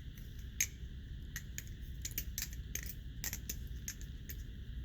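Cyoz balisong (butterfly knife) being fanned: quick, irregular metallic clicks and clacks, several a second, as the handles swing around the blade and knock together.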